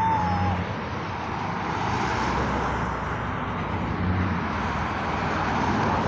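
Cars and trucks passing on a highway, a steady rush of tyre and engine noise that swells and eases as each vehicle goes by.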